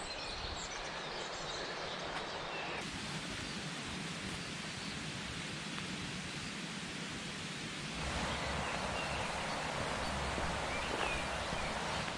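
Outdoor ambience: a steady rushing hiss with a few faint bird chirps. The background changes abruptly about three seconds in and again about eight seconds in, becoming deeper and a little louder after the second change.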